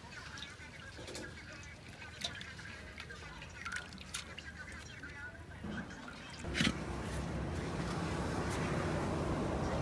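Liquid being handled in food preparation: scattered drips and small knocks, then a steady rush of pouring liquid that starts about two-thirds of the way in.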